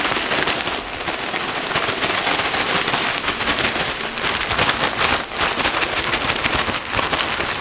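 Plastic gallon bag being shaken hard, a dense crackling rustle of the bag with fish fillets and dry seasoning mix tossing inside.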